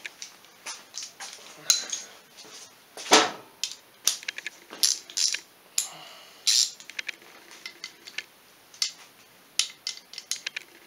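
Irregular metallic clicks and clinks of hand tools against the engine's cam chain tensioner and bolts, some with a brief ring. Near the end a ratchet wrench clicks as the tensioner bolt is tightened.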